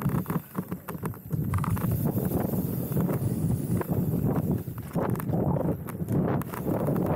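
Mountain bike riding down a rough dirt singletrack: a steady low rumble of tyres on the ground with many quick, irregular rattles and knocks from the bike over bumps.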